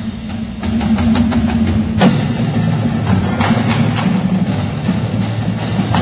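A marching percussion ensemble playing: snare drums, tenor drums and bass drums striking in rhythm with a front ensemble. There is a sharp accent hit about two seconds in, over held low notes.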